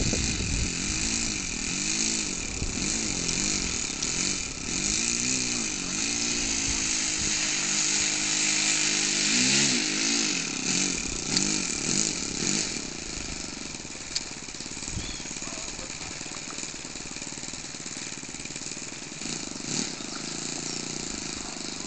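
Small internal-combustion engine of a radio-controlled Cessna 177 Cardinal scale model, revving up and down again and again as the model taxis on grass. About thirteen seconds in it drops to a steadier, quieter idle.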